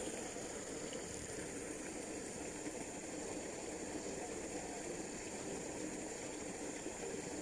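Steady outdoor background noise, an even hiss with a thin, steady high-pitched tone above it and no distinct events.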